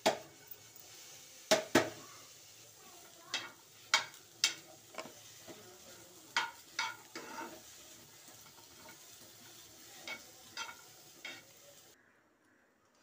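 Food sizzling in a nonstick frying pan while a spoon stirs it, with about a dozen sharp clacks of the spoon against the pan. The sound cuts off near the end.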